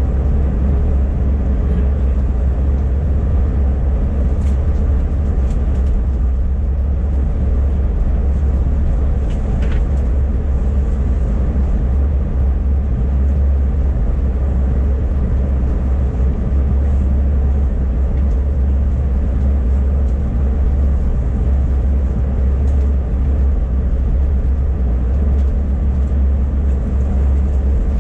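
Steady low drone inside the cabin of an Airbus A380 on the ground before takeoff, with a few faint clicks.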